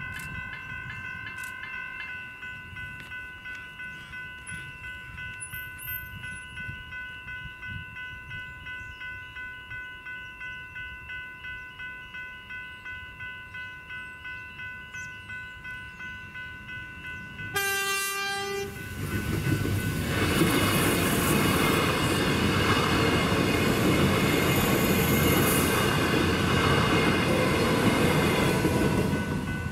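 Level-crossing electronic bells (General Signals e-bells) ringing steadily, about two strikes a second. About 17.5 seconds in, a Metro Trains Comeng electric suburban train sounds its horn for about a second, then passes over the crossing loudly, with wheel and track noise drowning the bells until near the end.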